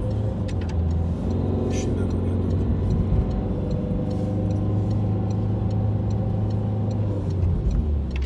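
A motor vehicle's engine running steadily close by, easing off near the end.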